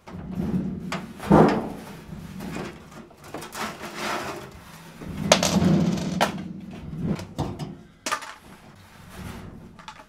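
Clattering and rummaging as debris is cleared from under a tumble dryer, with rustling and irregular sharp knocks, the loudest about a second and a half in and another about five seconds in.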